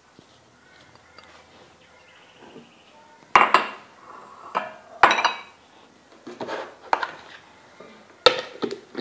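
Chopped pear being tipped into a food processor jar: a few soft drops and several sharp clinks of kitchenware against the jar, the loudest about three and a half, five and eight seconds in.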